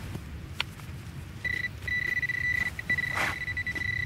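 Metal detecting pinpointer sounding a steady high-pitched tone from about a second and a half in, broken by a few short gaps: the signal that metal lies close to its tip. A brief scrape of soil about three seconds in.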